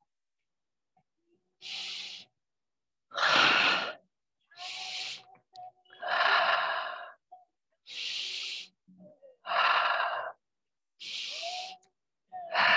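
A person breathing slowly and audibly close to the microphone, about four full breaths. Each is a softer, high hissing breath followed by a louder, fuller one, with short silences between.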